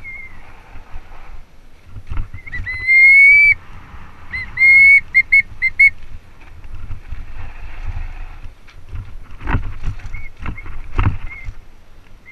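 Mountain bike disc brakes squealing under braking: one long, slightly rising squeal, then a quick run of four short squeals as the brakes are pulsed, with fainter brief squeals later. Underneath is the rattle and rumble of the bike on rough dirt trail, with a couple of sharp knocks from bumps about two thirds of the way through.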